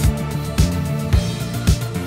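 Background music with a steady beat of a little under two hits a second over a bass line.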